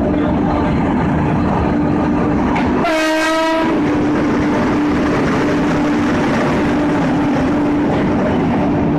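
WAP-7 electric locomotive passing close by with a steady rumble and hum, and one short horn blast about three seconds in.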